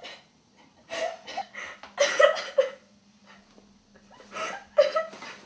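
Short breathy bursts from a person's voice without words, three or four of them with pauses between, over a faint steady hum.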